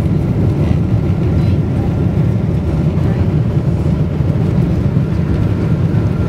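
Steady, loud low rumble heard inside the passenger cabin of a Boeing 777-200ER rolling along the runway just after landing, with spoilers deployed: engine, airflow and runway rolling noise blended together.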